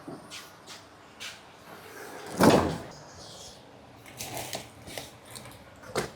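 Scattered knocks and clicks with one loud bang about two and a half seconds in, like objects or a door being handled and knocked about.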